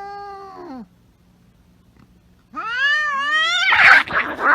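Domestic cats caterwauling in a fight standoff. A falling yowl trails off, there is a short pause, then a louder yowl rises and falls and breaks into a harsh hissing screech near the end.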